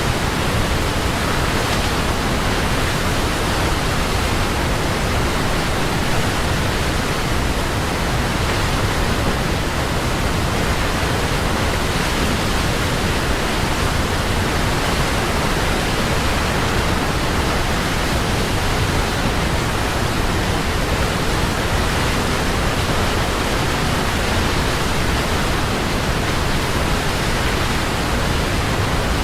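Waterfall: a steady, even rush of falling water with no breaks or separate splashes.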